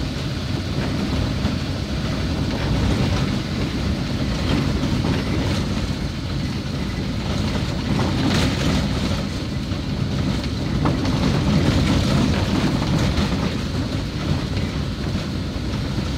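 Steady rumble and rattle of a vehicle driving over a rough, unpaved, not yet compacted road, heard from inside the cabin, with occasional sharp knocks.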